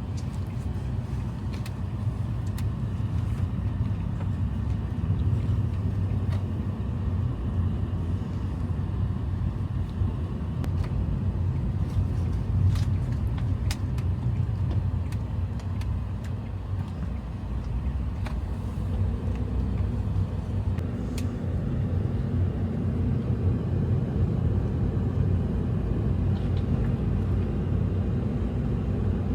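Steady low rumble of a vehicle driving, with a few faint clicks.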